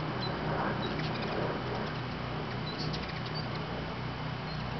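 Hummingbirds chittering around nectar feeders: short, high squeaks come every second or so over a steady low hum.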